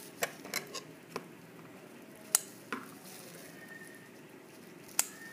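Scissors snipping through a folded plastic shopping bag, cutting it into strips: a few soft snips in the first second, then two sharper, louder snips about two and a half seconds apart.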